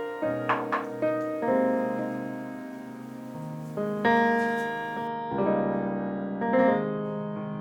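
Background music: gentle piano playing slow chords, each chord struck and left to ring.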